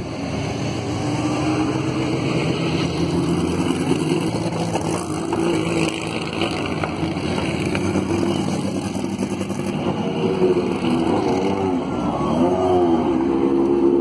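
Historic racing cars driving slowly past one after another, their engines running at low revs. From about ten seconds in, several quick throttle blips rise and fall in pitch.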